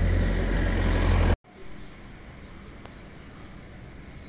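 Steady low rumble of street traffic that cuts off abruptly about a second and a half in. Quieter steady background noise follows, with a few faint high chirps.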